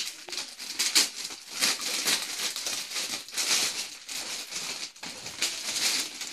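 Thin plastic parcel bag being snipped open with scissors and then crinkling and rustling as it is pulled open by hand, with many quick sharp crackles.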